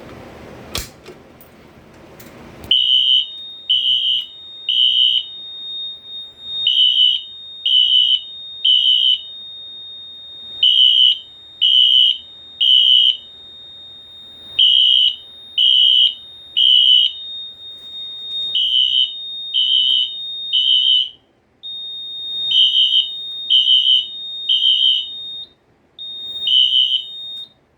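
Two Wheelock NS fire alarm horns sounding in sync in the temporal code-3 pattern: three high beeps, a pause, and repeat about every four seconds, starting a couple of seconds in after a few clicks. A steady high tone runs underneath and cuts out briefly twice near the end.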